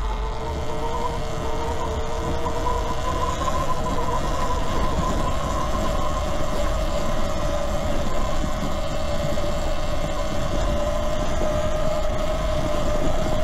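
Eride Pro SS 72-volt electric dirt bike under way: a steady electric motor and drive whine that wavers in pitch with speed and climbs slightly near the end, over wind and tyre rumble.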